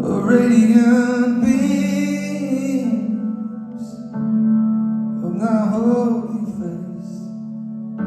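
Harmonica solo over sustained keyboard chords: two wavering, pitch-bending phrases, the first about three seconds long, the second shorter, starting a little past the middle.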